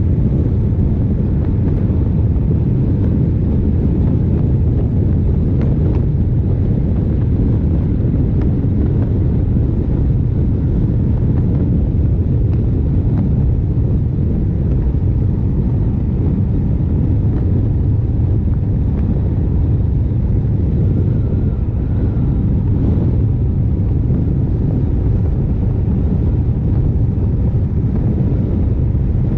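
Honda CRF1100L Africa Twin's 1084 cc parallel-twin engine at a steady cruise, mixed with wind rushing over the camera microphone. An even, unchanging rumble with no gear changes or throttle blips heard.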